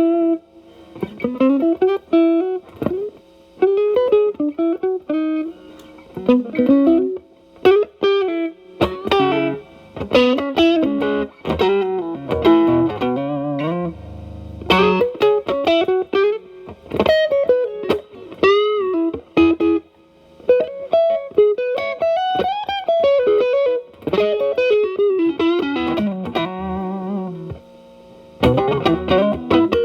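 Telecaster electric guitar played through an E.W.S. Brute Drive distortion pedal into a Marshall Valvestate's clean channel, with the drive set to low gain and cleaned up to a light crunch. It plays blues-style single-note phrases with string bends, broken by short pauses.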